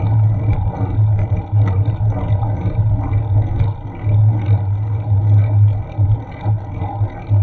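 Low steady rumble from an action camera riding on a bicycle in city traffic, a droning hum that drops out briefly now and then, with faint rattles and clicks over it.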